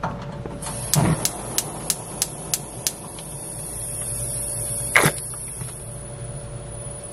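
Gas range burner being lit: the igniter clicks about seven times, roughly three a second, under a thin steady hiss of gas. Then comes one sharp knock about five seconds in.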